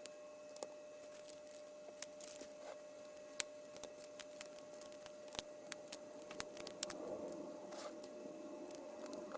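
Plastic LEGO bricks clicking and being pressed together by hand, a series of scattered sharp clicks, the loudest a little over three seconds in, with soft handling rustle towards the end. A faint steady hum runs underneath.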